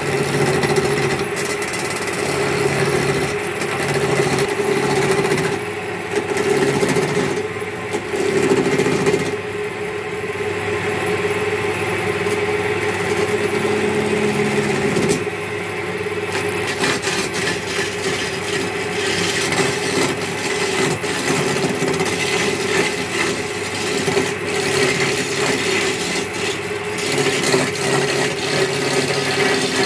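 Wood lathe running with a steady motor hum while a hand-held turning chisel cuts into a spinning wooden table-leg blank, a rough scraping and shaving sound that swells and eases as the tool is pressed in and moved along.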